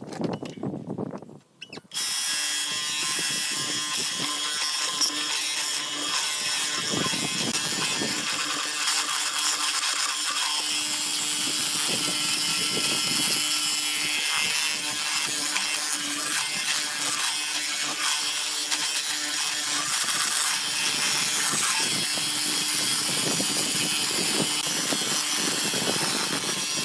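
An electric woodworking power tool running steadily on wood, starting about two seconds in after a few quieter handling sounds.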